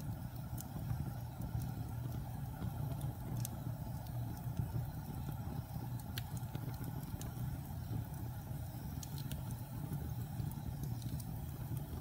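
Wood fire burning in a fireplace: a steady low rumble of the flames, with a few sharp crackles from the burning logs scattered through.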